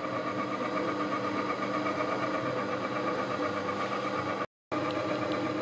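Stand mixer's electric motor running steadily at very low speed, a constant hum while it mixes flour and sugar. The sound drops out for a split second about four and a half seconds in.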